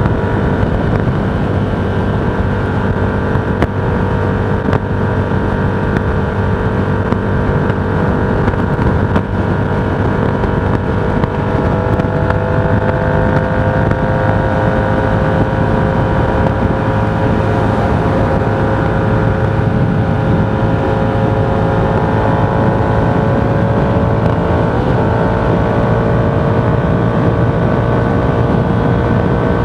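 A vehicle travelling at a steady cruise: a constant drone of motor and road noise, its pitch drifting slowly up and down with speed, over wind noise.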